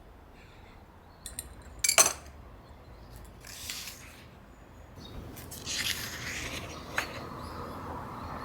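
Kitchen handling sounds: a sharp clink of glass or dishware about two seconds in, short rubbing or brushing sounds, and a click near the end.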